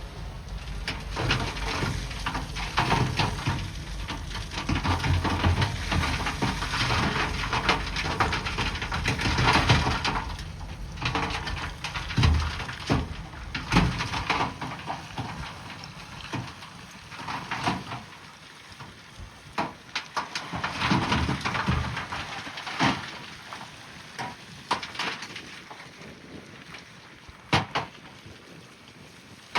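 Bulldozer working among rock: irregular clattering and knocking, with a low engine rumble under it that drops away about halfway through.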